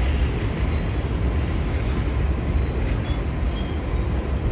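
BNSF mixed freight train rolling past, a steady rumble of wheels on rail.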